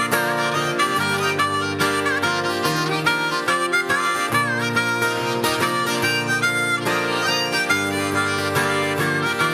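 Instrumental break of a live country-blues song: a harmonica plays the lead line with bent notes over strummed acoustic guitar and steady chords.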